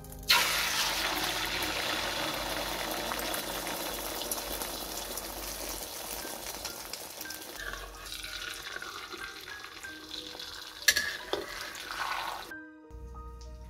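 Beaten egg hitting hot oil in a wok: a loud sizzle bursts in about a quarter second in, then settles into a steady frying sizzle that slowly fades. Near the end a single sharp clink of a metal spatula against the wok.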